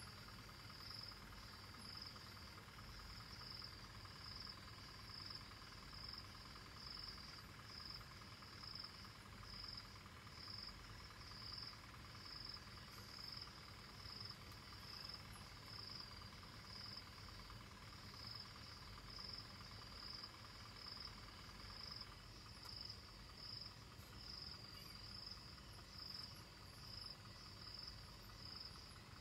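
Faint night insects, crickets or similar, chirping in a steady, evenly repeating high-pitched pulse.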